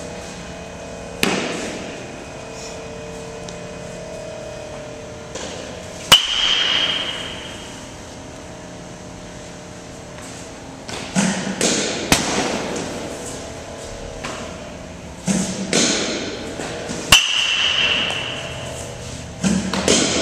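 A metal baseball bat hitting baseballs. Twice, about eleven seconds apart, there is a sharp crack with a short ringing ping, and there are duller knocks and thuds in between.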